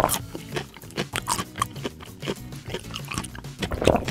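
Cartoonish munching and chomping sound effects, a quick irregular run of short crunchy bites, over light background music. The bites come loudest near the end.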